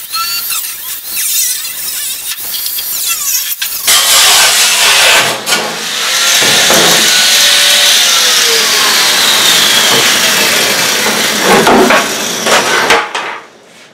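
Angle grinder with a cutting disc cutting through a rusted steel floor pan, moderate for the first few seconds, then loud and steady as the disc bites into the metal, its pitch slowly wavering. It winds down near the end.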